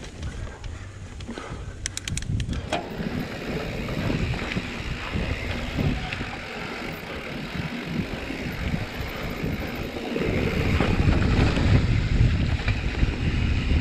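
Mountain bike riding fast down a dirt singletrack: knobby tyres rolling over dirt, the bike rattling over bumps, and wind buffeting the microphone, which grows louder about ten seconds in as speed picks up. A brief run of sharp clicks comes about two seconds in.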